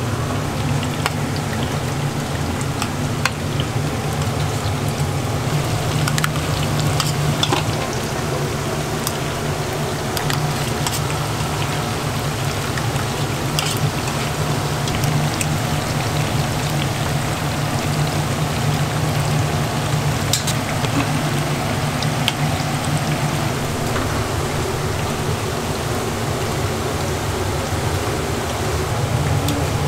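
Battered vegetable fritters deep-frying in a pot of hot oil, a steady bubbling sizzle, with a few light metal clicks from tongs and a strainer. A steady low hum runs underneath.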